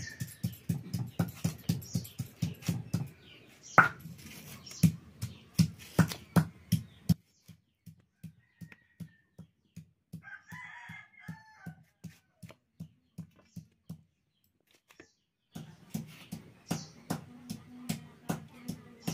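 Rhythmic knocking of a stone pestle pounding on a flat grinding stone (sil-batta), about five strokes a second. It grows fainter in the middle, stops briefly near the end, then comes back. A rooster crows once about halfway through.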